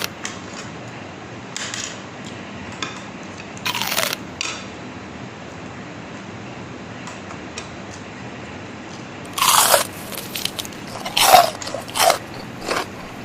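Close-up crunching as crisp food is bitten and chewed. There are single crunches at about two and four seconds in, then a quick run of louder crunches over the last four seconds.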